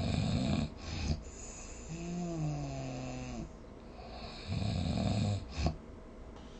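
A sleeping person snoring: two rough, loud snores about four and a half seconds apart, each ending in a short sharp catch. Between them comes a drawn-out moaning tone that slowly falls in pitch.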